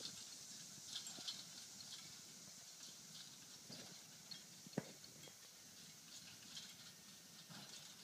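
Near silence in an open field: a faint steady high hiss with a few soft scattered ticks and rustles.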